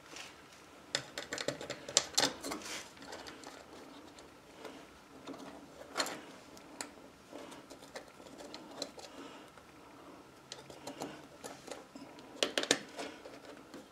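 Light clicks and taps of a screw and washer being handled and threaded by hand into a headlight bucket through its rubber gasket. They come in small clusters about a second in, around six seconds in, and near the end.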